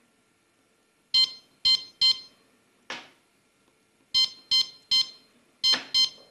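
Key beeps of a CADD-Prizm ambulatory infusion pump as its up-arrow key is pressed repeatedly to raise the continuous rate: about eight short beeps, three and then five, with a brief noise about three seconds in.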